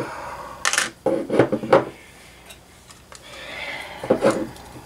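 Handling noises from a model glow engine and its small metal parts on a workbench: a few sharp knocks and clinks about one to two seconds in, a stretch of scraping past the middle, and more knocks near the end.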